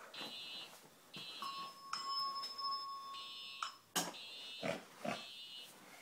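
Simplex TrueAlert fire alarm horns sounding repeated buzzy blasts of about half a second each, mostly about a second apart. A steady higher tone sounds for about two seconds in the middle, and a few sharp knocks come in the second half.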